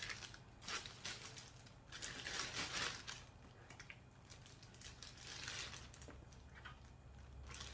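Plastic zip bag crinkling and rustling in several irregular bursts as pieces of marinated meat are packed into it.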